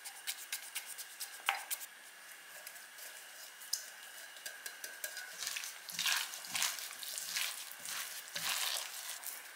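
Light clicks and taps as thick, wet settled starch is scraped out of a glass measuring cup into a glass bowl. From about halfway, a gloved hand works the starch into raw chicken pieces in the bowl, making a series of wet squelching, rustling squishes that turn the starch into batter.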